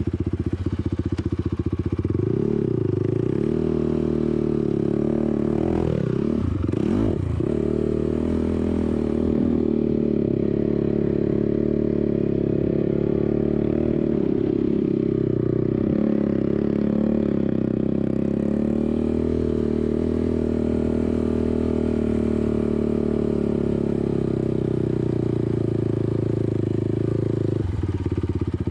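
ATV engine running under way, its pitch rising and falling with the throttle, with a quick rev up and back down about six to seven seconds in.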